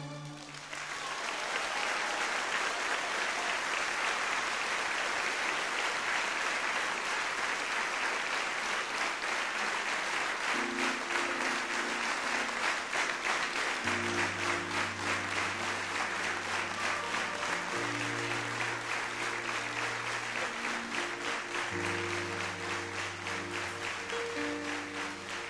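Theatre audience applauding. About ten seconds in, a soft band introduction of held chords starts under the applause, with low bass notes joining a few seconds later.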